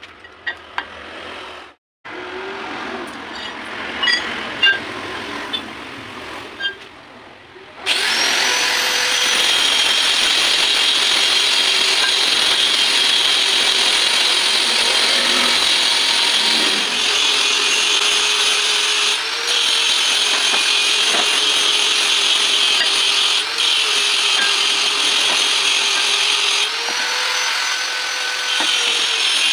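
Steel brake discs and a spacer plate clinking and knocking as they are handled, then from about eight seconds in a loud, steady power-tool or machine noise with a held tone, running on with small dips.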